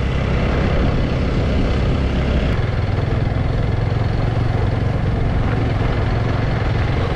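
Small motorbike engine running during a ride, with heavy wind noise on the microphone. About two and a half seconds in the engine note changes and then holds a steadier, higher hum.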